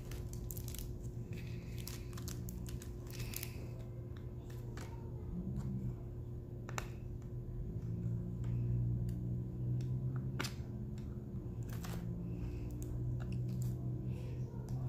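Scattered faint clicks of a diamond painting drill pen picking up resin drills and pressing them onto the sticky canvas, over a steady low hum.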